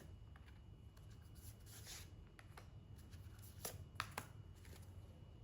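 Tarot cards being shuffled and handled, heard as a few scattered faint flicks and snaps over a low steady room hum.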